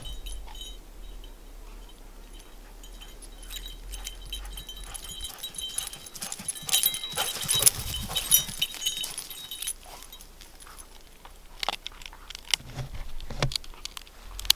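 Metal tags jingling on a running Vizsla's collar, with sharp little clinks that are loudest and densest about seven to eight seconds in as the dog runs close by, and a few more clinks near the end.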